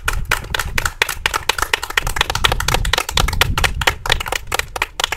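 A small group of people clapping steadily after a speech.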